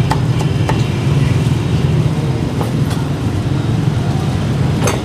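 Steady low rumble of street traffic, with a couple of cleaver chops on a wooden chopping block right at the start and one sharp knock near the end.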